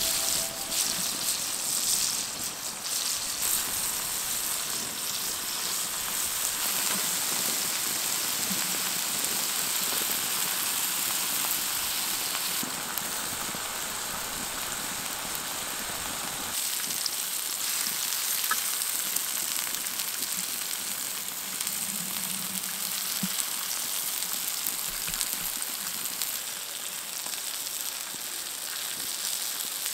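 Slices of grilling cheese sizzling steadily in a frying pan over a wood campfire.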